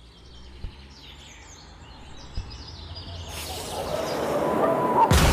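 Outdoor ambience of birds chirping, with two soft thumps in the first half. A wash of noise swells over the last two seconds, and a sudden loud sound breaks in right at the end.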